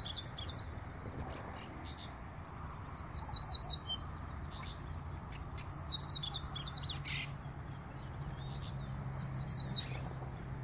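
Double-collared seedeater (coleiro) singing: short phrases of rapid, falling, high notes, repeated about every three seconds. A low steady hum runs underneath and grows louder near the end.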